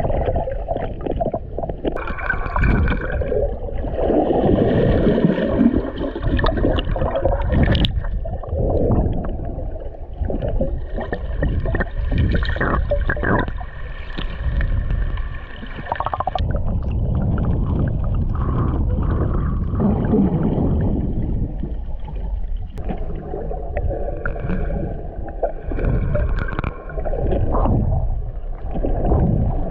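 Muffled underwater sound picked up by a GoPro in its waterproof housing: water sloshing and gurgling around the camera, with a steady low rumble that swells and fades.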